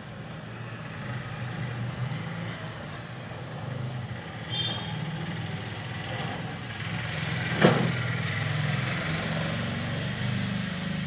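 A steady low engine rumble, like a motor vehicle idling, with one sharp click about two-thirds of the way through.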